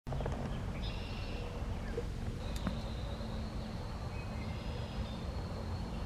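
Outdoor ambience: a steady low rumble with faint, thin high-pitched bird calls over it and a single small click partway through.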